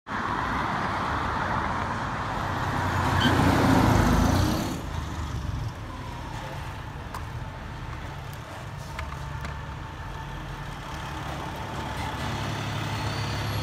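A car passes close by, its tyre and engine noise swelling and then fading over the first five seconds. Then comes the low, steady diesel rumble of a fire engine moving slowly.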